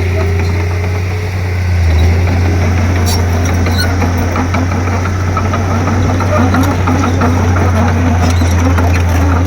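Komatsu D31P bulldozer's diesel engine running steadily with a deep, even drone, and a few light clanks over it.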